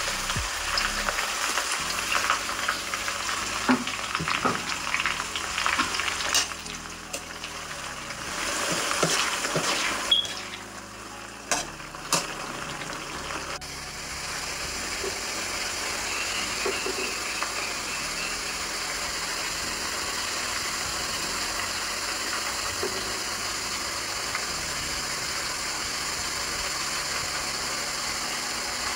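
Chopped red chilies and sliced garlic frying in oil in a wok: an irregular crackling sizzle with a ladle stirring and a few sharp knocks against the pan in the first half, settling into a steady, even sizzle from about halfway through.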